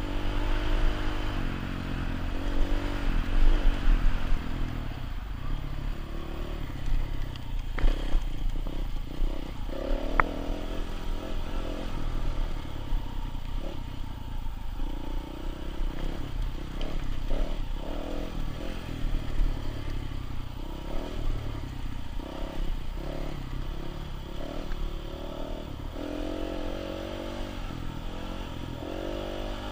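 Dirt bike engine running as it climbs a rocky trail, rising and falling with the throttle, then revving in short bursts about once a second in the second half. A single sharp knock sounds about eight seconds in.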